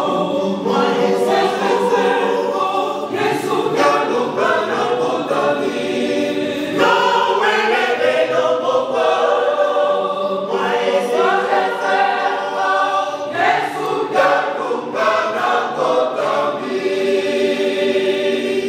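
Mixed choir of women's and men's voices singing a hymn unaccompanied, in phrases of a few seconds.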